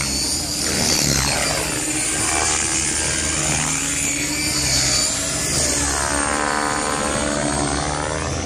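Gaui X5 electric RC helicopter flying 3D aerobatics: the motor whine and rotor noise rise and fall in pitch again and again as it swoops past.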